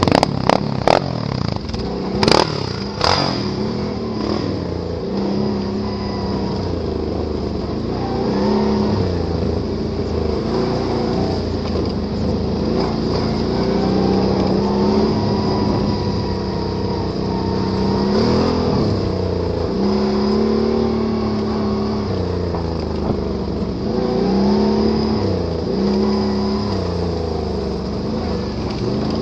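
ATV engine being ridden off-road, revving up and down as the throttle opens and closes. A few sharp knocks come in the first three seconds.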